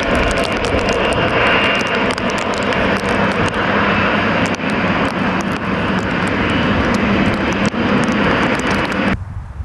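Boeing 707 jet engines at takeoff power: a loud, steady jet noise with a thin whine and sharp crackling. It cuts off suddenly about 9 seconds in.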